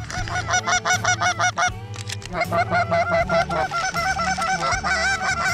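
Canada goose honks and clucks in a rapid run, one short call after another.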